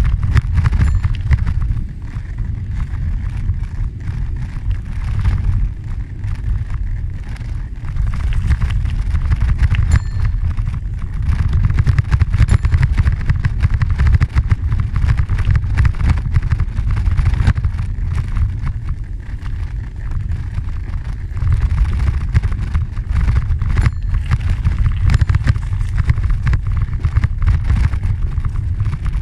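Wind buffeting the microphone over the rumble and rattle of a bicycle riding on a dirt trail. The noise is steady and low, with small dips and swells in loudness.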